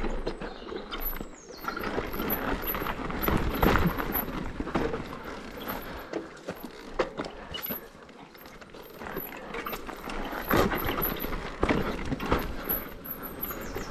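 Mountain bike being ridden over a rough dirt trail: tyres running over uneven ground while the bike rattles and knocks irregularly over bumps.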